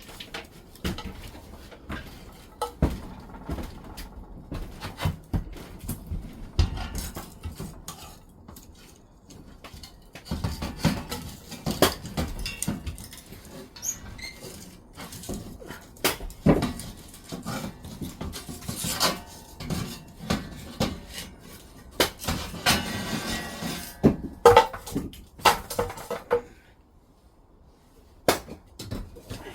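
Irregular knocks, clinks and clatter of things being handled and set down, with short busier stretches and a brief lull near the end.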